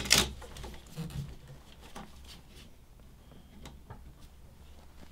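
Light handling noises: a brief rustle right at the start, then a few faint scattered clicks and taps as a tape measure is held and worked against PEX pipe.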